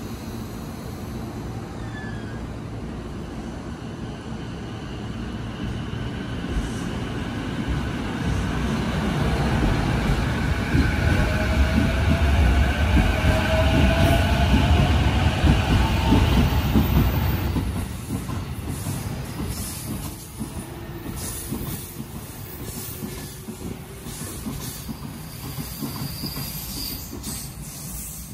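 JR East E233-5000 series electric train pulling out and accelerating past: a rising motor whine over the rumble of wheels on rail, loudest about halfway through as the cars go by. The sound drops off suddenly after that and fades as the train runs away down the line.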